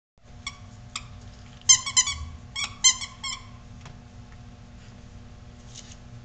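Five-week-old bullmastiff puppies squeaking and whining in short, high-pitched cries. There are a couple of single cries, then a quick run of them in the first half, over a steady low hum.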